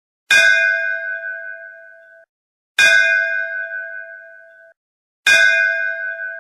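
Electronic school bell tone: three identical strikes of a recorded bell, about two and a half seconds apart. Each rings and fades, and the first two cut off sharply after about two seconds.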